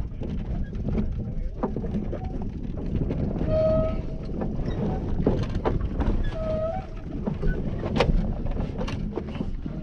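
Low, steady rumble of a fishing boat with wind on the microphone, scattered knocks and clicks, and two short high-pitched tones, one about three and a half seconds in and one about six and a half seconds in.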